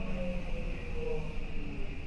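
Seibu 6000 series train's Mitsubishi SiC VVVF inverter and traction motors whining, several tones gliding slowly down in pitch as the train slows under braking, over steady running noise.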